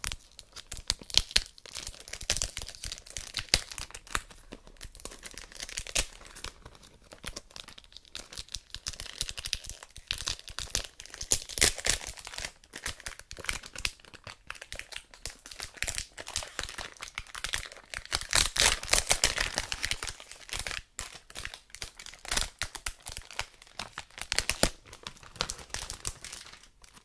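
Plastic wrap and packaging on a perfume box crinkling and tearing as it is unwrapped by hand, with many irregular crackles and sharp ticks.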